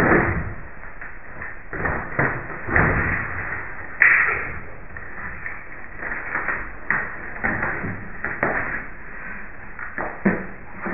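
Knife-throwing noises: shuffling and handling sounds, with several knocks and one sharp knock about four seconds in, the loudest sound.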